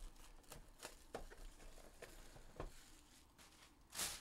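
Faint handling of trading cards and their packaging on a table: scattered light taps and clicks, with one short rustle near the end.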